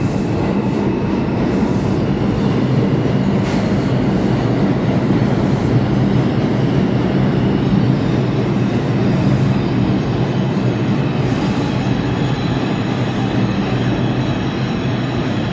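New York City subway train running alongside the station platform: a loud, steady rumble of steel wheels on rail, with a faint high squeal over it.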